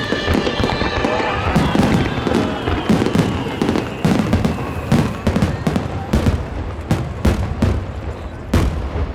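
Aerial fireworks bursting in quick succession, a rapid series of sharp bangs and deeper booms, with show music fading out during the first few seconds.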